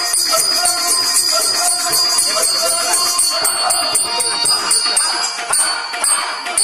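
Live folk-theatre accompaniment: held harmonium-like tones with jingling bells keeping a quick beat, which thins to a slower beat about halfway through.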